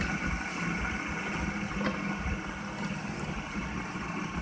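Several fidget spinners spinning at once, making a steady, even whirring hum.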